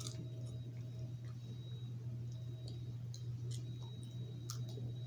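Popcorn being chewed: irregular small crunches and clicks, roughly one or two a second, over a steady low hum.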